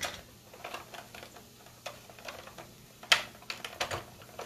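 Scattered light clicks and knocks of a plastic hand-crank spiralizer being handled and worked on a sweet potato, with one sharper click about three seconds in.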